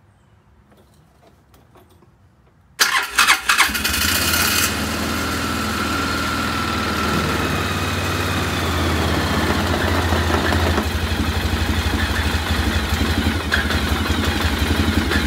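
Polaris Ranger 500's single-cylinder engine cranked and catching about three seconds in, then idling steadily. It is being run for a few seconds after an oil change with the top reservoir hose pinched off, to prime the oil system.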